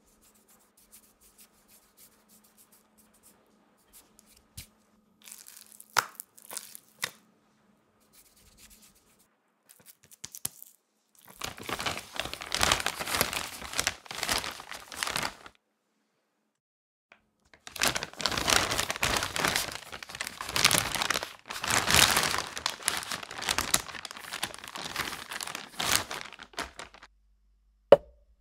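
Thin clear plastic sheet crinkling and rustling as it is handled over the meat, in two long stretches. Near the end, a single knock as a small plastic plant pot is set down on a wooden counter.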